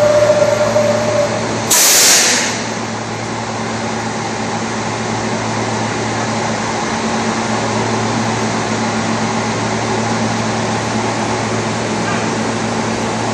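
R160 subway car standing in the station: a short loud hiss of released air about two seconds in, then the steady hum of the idling train's onboard equipment.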